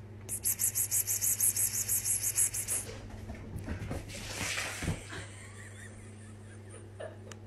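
A person calling a cat with a rapid whispered 'pspsps', short hissing bursts about six a second for some two and a half seconds, over a steady low hum.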